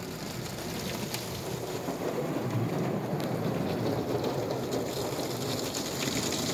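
Water jets from a PDQ Laserwash 360 Plus touchless car wash spraying onto the car's rear window and roof, heard from inside the cabin as a dense, rain-like hiss. It swells over the first couple of seconds and then holds steady.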